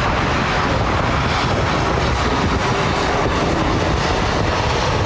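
Airliner passing low overhead on its landing approach: a loud, steady engine rush and rumble.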